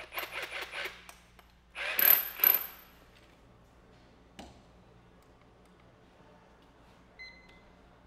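Metal clicks, clinks and rattles of a steel bit being worked into the chuck of a Milwaukee 2717 SDS-Max rotary hammer, in two clusters in the first three seconds, the second louder with a bright ring. A single click follows about four and a half seconds in.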